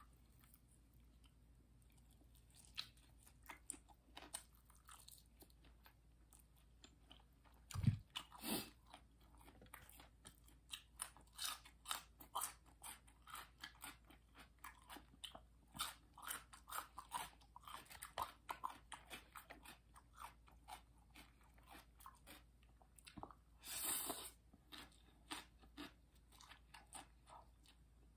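Close-up eating of raw green vegetables: crisp crunches and wet mouth clicks, sparse at first and coming thick and fast from about ten seconds in. A single low thump just before eight seconds is the loudest sound.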